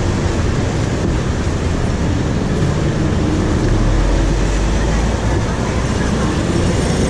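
Loud, steady traffic noise: a low vehicle rumble under a constant hiss, with a deeper hum swelling for a moment about halfway through.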